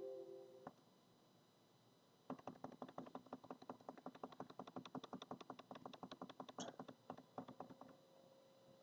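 Faint, rapid computer clicking, about ten clicks a second, starting a little over two seconds in and lasting about five and a half seconds, as device addresses are entered one after another in the panel software.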